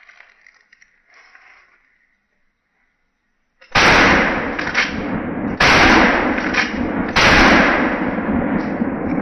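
Three pump-action shotgun shots about a second and a half apart, each sudden and loud, followed by a long noisy tail. A little faint handling noise comes before them.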